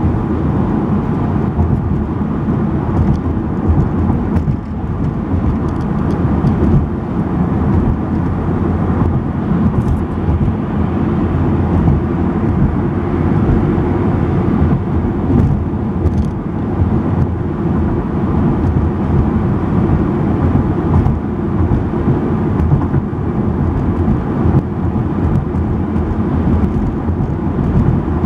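Steady rumble of a car driving at road speed, tyre and engine noise heard from inside the cabin.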